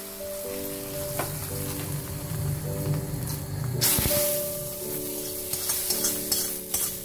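Hot oil in a tadka pan sizzling, with a sharp burst of sizzling about four seconds in as a ladle of curry is poured into the pan, fading over about a second. Ladle clicks and stirring in the curry pot follow near the end. Background music with held tones plays throughout.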